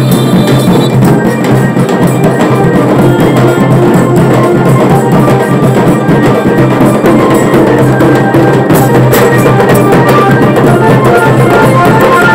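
Bengali wedding band party playing loudly: a fast melody of short repeated notes over steady drumming and a sustained low tone, recorded on a phone's microphone.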